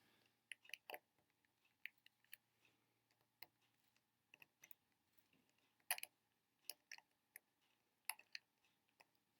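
Faint, irregular small plastic clicks and taps from handling a disassembled GAN 356X cube's parts and its adjustment tool, with slightly louder clicks about six and eight seconds in.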